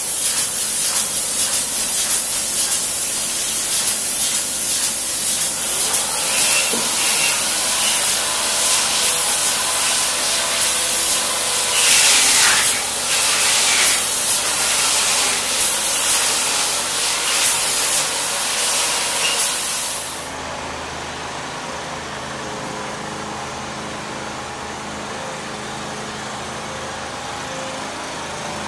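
Closed cell spray foam gun spraying foam onto steel container walls with a loud, steady hiss, which cuts off suddenly about two-thirds of the way through. A quieter steady machine hum continues after it.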